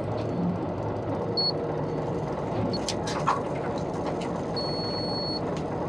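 Steady low hum of a fishing boat's engine with wind and water noise, broken by a short high electronic beep about a second and a half in and a longer one near the end.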